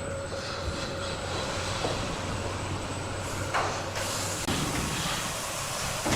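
Wood-cutting saw machinery running with a steady mechanical clatter and hum, the sound shifting about four seconds in.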